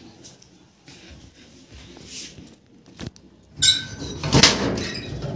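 A door being opened: a sharp click about three seconds in, then a brief squeak and a loud scraping sweep as it swings.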